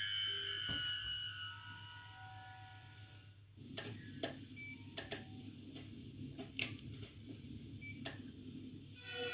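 ÖBB 1116 Taurus electric locomotive sound from an ESU LokSound project, played back in the LokProgrammer simulator during its power-up sequence. A set of falling tones fades away; then, about three and a half seconds in, a low hum rises with a run of irregular sharp clicks.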